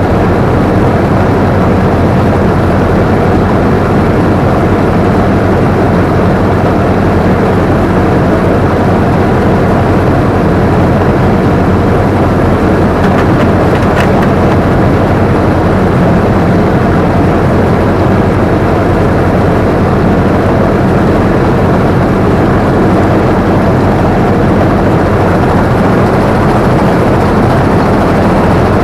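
Combine harvester running steadily, heard from the operator's seat: a loud, even engine and machinery drone, with one brief click about halfway through.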